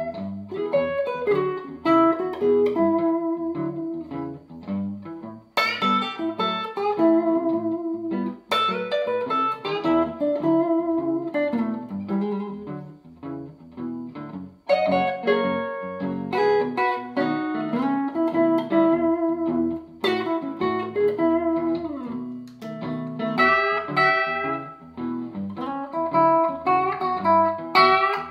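Telecaster-style partcaster electric guitar played through a Fender Excelsior tube amp with a clean tone, noodling blues single-note lines and chords, with a few sharp chord attacks along the way.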